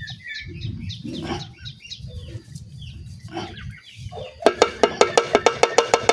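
Chickens clucking, with a rapid, even run of loud clucks, about six a second, starting about four and a half seconds in.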